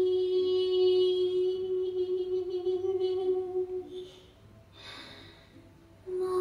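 A recorded Mandarin ballad played through Qinsound hi-fi loudspeakers: a female singer holds one long note for about four seconds. It fades, the music goes nearly quiet for a moment, and a new held note comes in just before the end.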